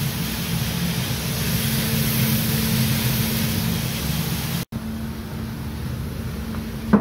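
Freshly roasted coffee beans churning in a coffee roaster's cooling tray under its rotating stirring arms, over the machine's steady hum. About two-thirds of the way through the sound cuts off abruptly, leaving a quieter steady hum.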